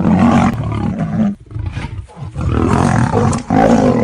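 Big cat roaring in two long, loud bouts, with a short break about a second and a half in.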